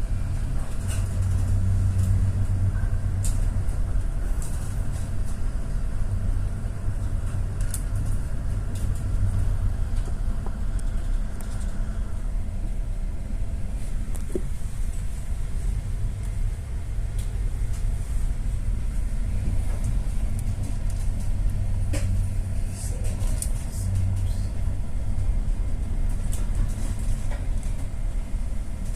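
A vessel's engine running steadily, a low rumbling hum heard on board, with a few scattered clicks and knocks.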